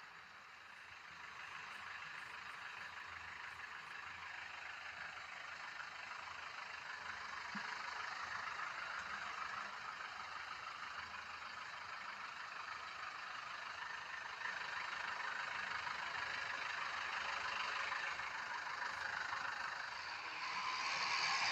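Diesel engine of a self-loading concrete mixer running steadily, growing gradually louder.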